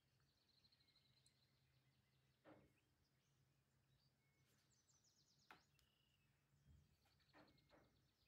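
Near silence: faint room tone with a few soft, scattered clicks and faint high chirps.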